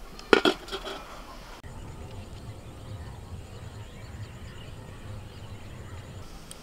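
An aluminium pot lid set down over a bowl, clattering in a few quick metallic knocks about half a second in. A steady low rumble follows from about a second and a half in.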